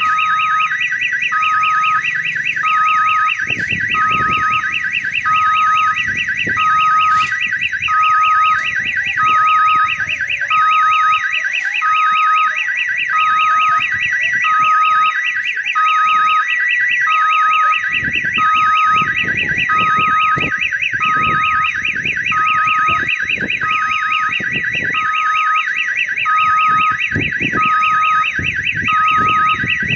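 Railway level-crossing warning siren at a crossing with no barrier, sounding without pause. It is an electronic siren like a kiddie-ride odong-odong siren: a fast warble over two tones, low and high, alternating about once a second.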